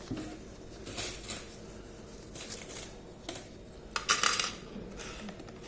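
Several short bursts of small metal objects jingling and clinking, the loudest about four seconds in.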